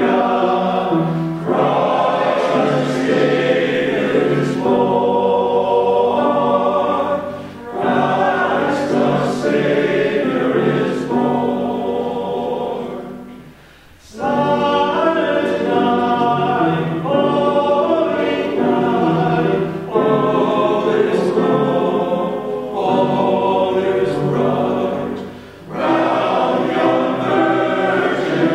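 Male voice choir singing in harmony, phrase by phrase, with a short, almost silent pause about halfway through.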